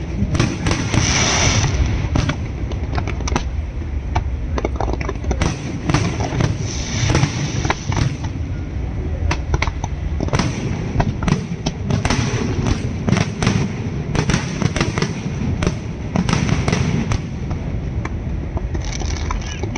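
Fireworks going off without a break: a dense, irregular run of sharp cracks and bangs over a steady low rumble.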